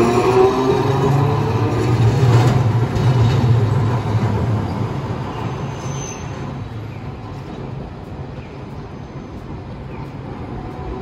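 Hiroden 700-series electric streetcar passing close by: its motor whine and the low rumble of its wheels on the track are loudest in the first few seconds, then fade from about four seconds in as it pulls away.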